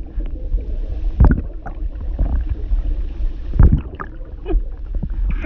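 Woman voice-acting drowning: a low, muffled gurgling and sloshing of water with bubbling, with two heavier surges about a second in and again near four seconds in.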